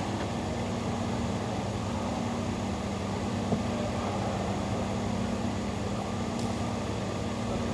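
Steady mechanical hum with a background hiss, with one faint knock about three and a half seconds in.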